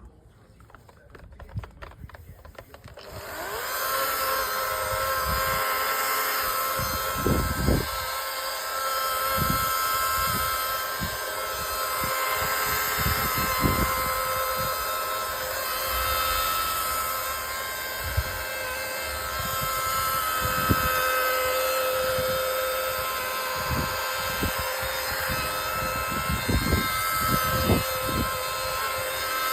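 Electric polishing machine starting up about three seconds in, then running steadily with a whine as its sponge pad works polish over a plastic headlight lens, with scattered low thumps.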